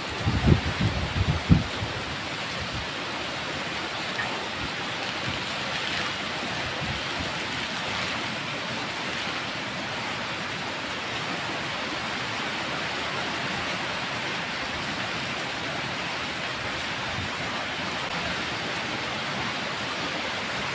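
Heavy typhoon rain pouring steadily. In the first two seconds, wind gusts buffet the microphone with a few low thumps.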